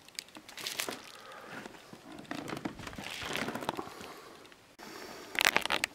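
Plastic bubble wrap rustling and crinkling as it is unwrapped by hand, with irregular small crackles and a short burst of louder crackling near the end.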